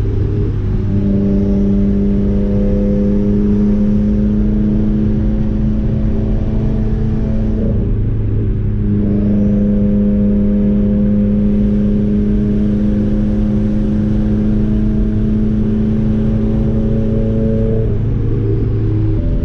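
Straight-piped Subaru WRX turbocharged flat-four exhaust, heard from inside the cabin, holding a steady note while cruising. The note breaks briefly about eight seconds in and settles to a slightly different pitch near the end.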